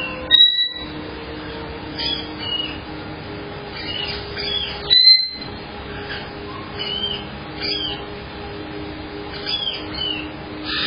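Caged pet parrots chirping and squawking in short, repeated calls, with two loud, sharp high whistles, one about half a second in and one about five seconds in. A steady low hum runs underneath.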